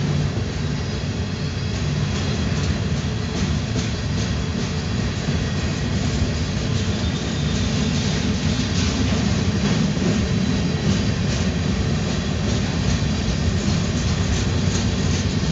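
Freight train of covered hopper cars rolling past, a steady rumble of steel wheels on the rails with light clicking throughout.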